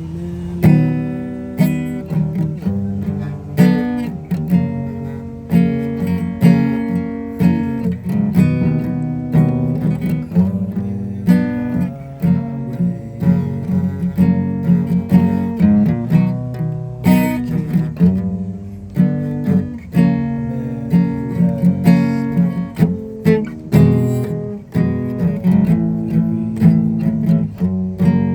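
Acoustic guitar strummed in a steady rhythm, chords changing as it goes, with no singing.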